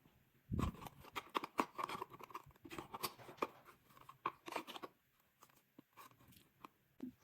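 Metal spoon scraping and clicking against a tin can as wet cat food is scooped out: a quick run of scrapes and taps with a dull thump about half a second in, thinning out after about five seconds.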